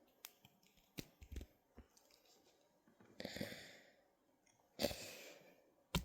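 Faint scattered clicks of a Jazwares Chainsaw Man action figure's plastic joints being bent and handled, with two soft breaths, about three and five seconds in.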